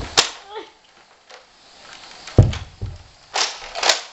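Nerf foam-dart blasters being fired and handled: a sharp crack just after the start, a heavy thump about two and a half seconds in with a smaller one after it, and two short noisy bursts near the end.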